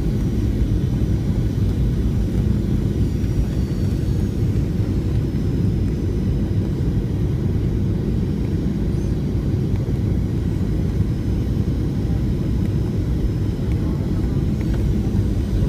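Steady engine and airflow noise of a Boeing 737-700 with CFM56 engines, heard inside the passenger cabin as an even low rumble.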